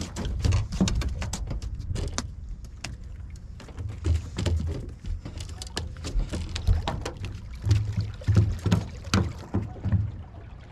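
Irregular clicks, knocks and low thumps of people moving about and handling a fish and tackle on a bass boat's deck, with heavier thumps clustered near the middle and toward the end.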